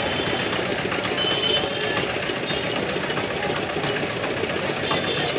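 Steady din of a busy street market, with a small engine running close by. A short sharp click comes about two seconds in.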